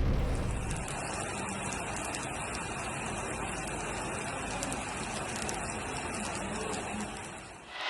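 Steady hiss of heavy rain falling, fading away near the end.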